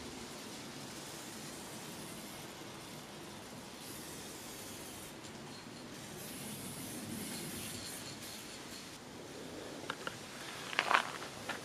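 Aerosol spray paint can hissing as paint is sprayed onto a canvas, with a few sharp clicks or knocks near the end.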